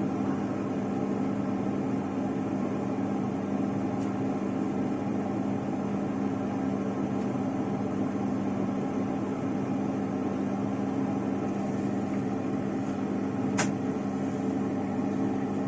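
Hot air rework station's blower running steadily, a whirring hum with a low tone, as it heats the board to reflow solder. A single sharp click about thirteen and a half seconds in.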